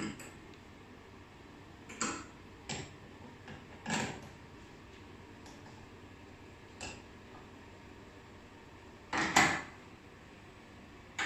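Scattered metallic clicks and clinks of a slider torsion testing machine's clamps being set by hand on a zipper slider's body and puller: a handful of separate knocks, the loudest a little past the middle.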